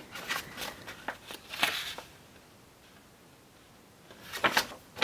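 Paper rustling as pages of the Rogue Trader rulebook are handled and turned: several short rustles in the first two seconds, a lull, then another rustle near the end.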